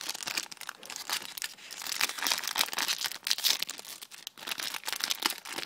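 Foil wrapper of a Yu-Gi-Oh trading-card booster pack crinkling and tearing as it is opened by hand, a dense, irregular crackle.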